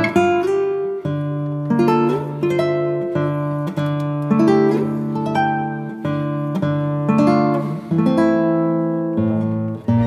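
Background music of plucked acoustic guitar, single notes picked one after another over held bass notes.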